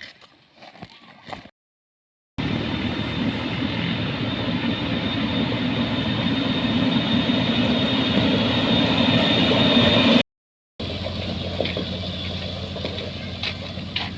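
Heavy construction-machinery engine running steadily and growing slowly louder, cut off abruptly and followed by another engine running more quietly at a steady idle, with a few clicks.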